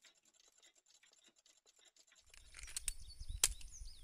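Near silence, then about halfway through a low outdoor rumble comes in with a few sharp metallic clicks of a Springfield Armory XD-S .45 ACP pistol being handled. The loudest click comes a little past the middle. Birds chirp faintly near the end.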